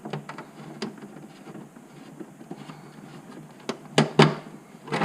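Hand-work on a bolt and fastener: scattered light clicks and taps, then a handful of sharp knocks in the last second and a half.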